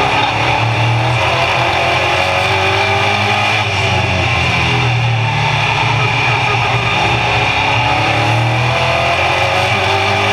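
Race car engine running hard under load, heard from inside the cockpit, its pitch falling and rising as the car lifts for the turns and accelerates down the straights.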